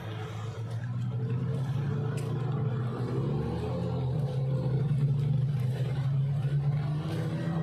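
Jet ski engines running as the watercraft ride past near the shore. The steady engine drone swells through the middle and eases off near the end.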